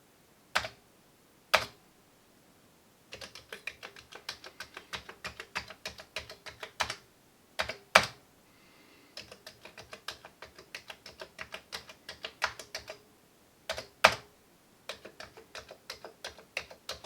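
Commodore 64 keyboard being typed on after a full clean and service, tested to see that every key responds. Runs of quick key clicks with short pauses between them, and a few single harder keystrokes: one near the start, one around the middle and one later on.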